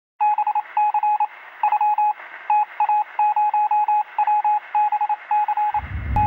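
A rapid string of short and longer electronic beeps at one steady pitch, in irregular groups like Morse code, sounding thin as if heard over a radio. A deep bass swell comes in near the end.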